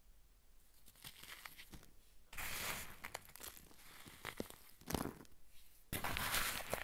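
Hands crumbling a dyed block of Comet powder: dry, crunchy crackling, with a loud stretch of crumbling about two and a half seconds in, a sharp snap near five seconds and another loud crumble near the end.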